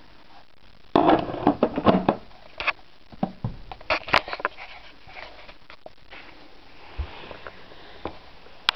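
Handling noise: a burst of rustling and crackling about a second in, then scattered light clicks and taps.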